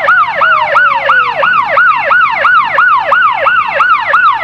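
Police car electronic siren in a rapid yelp, about three falling sweeps a second.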